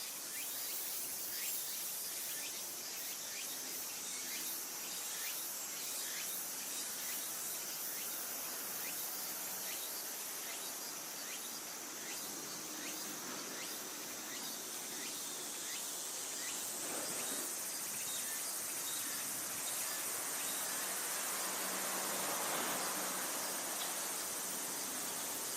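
Insect chorus, typical of crickets: a steady high-pitched trilling. Short chirps repeat about twice a second through roughly the first half.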